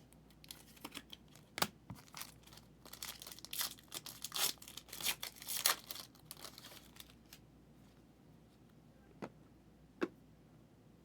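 Plastic crinkling and rustling as trading cards and their wrapping are handled, a dense run of crackles lasting several seconds, followed near the end by two separate sharp clicks.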